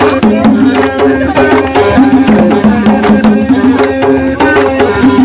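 Dance drumming: fast, even hand-drum strokes several times a second, with a pitched melody stepping between a few notes over them.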